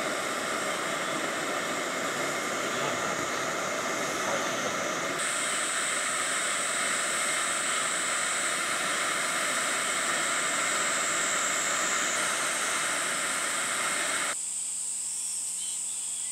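Steady hissing noise with a thin, high insect trill running above it. About fourteen seconds in the hiss stops abruptly, leaving the insects and a faint low hum.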